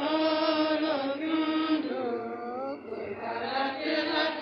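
Sung liturgical chant: a voice holding long notes that glide in pitch, in two phrases with a short break about three seconds in.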